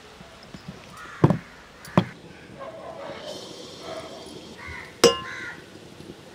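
Kitchen sounds at an iron kadai: two sharp knocks, then gulgule frying with a high sizzle in the hot oil for a couple of seconds, ended by a sharp ringing metal clink.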